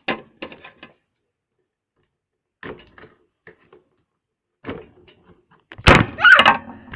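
Toy packaging being handled and pulled apart: scattered clicks and rustles of plastic and cardboard, then a louder clattering, scraping burst about six seconds in.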